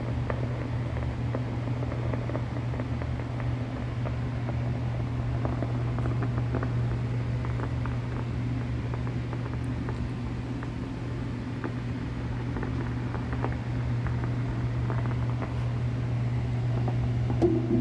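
Tube guitar amplifier humming steadily, with scattered faint clicks and crackles as its tubes are tapped.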